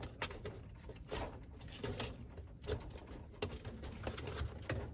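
Scattered light clicks and taps of a hand unhooking a tray's wiring harness from the metal side rail inside a Necta snack vending machine.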